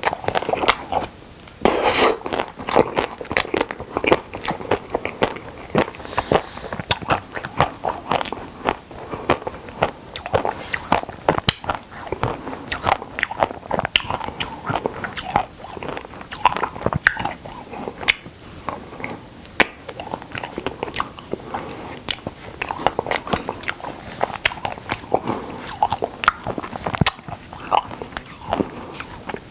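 Close-miked biting and chewing of Okdongja milk caramel ice cream bars: the coated bars crunch and crackle with each bite, and the chewing is wet, in a dense, irregular run of small clicks.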